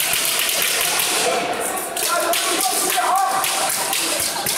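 Crowd hubbub in a sports hall: many spectators talking and shouting at once over a steady noisy din, with a few voices standing out about two to three seconds in.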